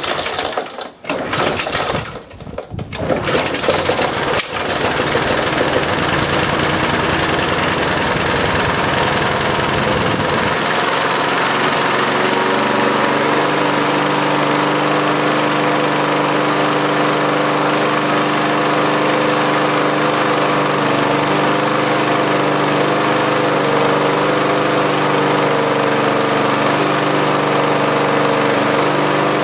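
Briggs & Stratton 35 Classic single-cylinder lawnmower engine pull-started, catching within about three seconds. It runs slow and uneven at first, then about ten seconds in picks up to a steady running speed, its governor spring just tightened to make it run faster.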